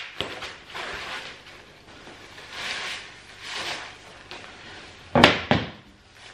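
Rustling and crinkling of cardboard and plastic packaging as wooden chair parts are unwrapped, in several separate bursts. A loud thump about five seconds in.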